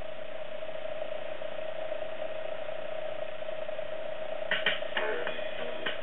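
AKAI GX-77 open-reel tape deck's transport running in playback, reels turning, with a steady mid-pitched tone and light hiss. A few small clicks come about four and a half seconds in.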